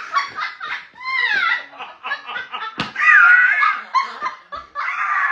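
Two people laughing uncontrollably: high-pitched, shrieking, breathless laughter in short bursts, with one sharp smack about three seconds in.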